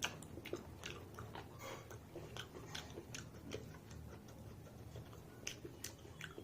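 Close-up chewing of mutton and rice: a run of short, sharp mouth clicks at an uneven pace.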